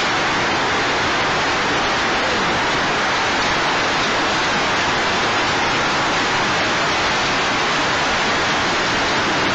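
Heavy hail and rain pelting a paved street, a loud, dense, steady hiss.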